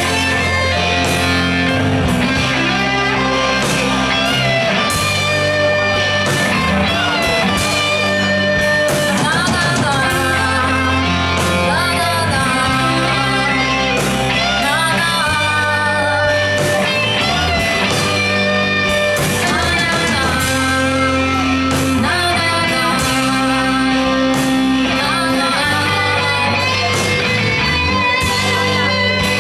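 A rock band playing live: electric guitar, electric bass and drums, with a woman singing at times.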